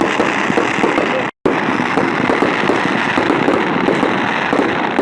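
Fireworks crackling continuously, with many small pops running together into a steady dense crackle. The sound drops out completely for a split second about a second and a half in.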